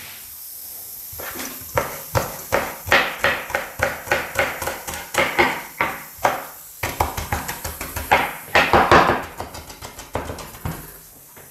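Chef's knife chopping fresh greens on a bamboo cutting board: a rapid, even run of knocks on the wood, about four a second.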